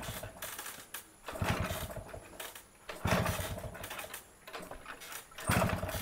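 Yamaha RX100's small two-stroke single being kick-started cold without choke: three kicks, roughly every two seconds, each turning the engine over in a short rumble that dies away without the engine catching.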